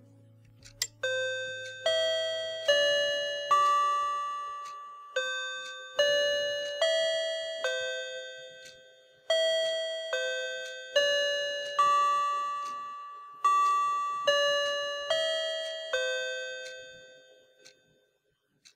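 Outro music: a slow tune of single bell-like notes, each struck and then ringing away, played in phrases of four with short pauses between, fading out near the end.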